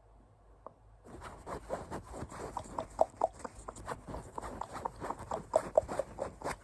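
Scratching on a poop emoji toy: a dense run of quick, irregular scratchy strokes that starts about a second in, after a few faint clicks.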